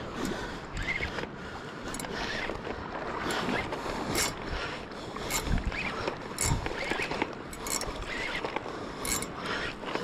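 Large spinning reel being cranked against a heavy fish, a giant trevally, on the line; its gears and line make a mechanical whirring, with irregular sharp clicks about once a second.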